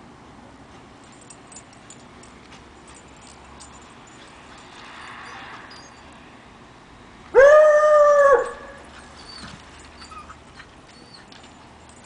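A dog gives one loud, drawn-out bark-howl lasting about a second, a little past halfway through, its pitch steady and dropping slightly at the end. Faint background with small ticks around it.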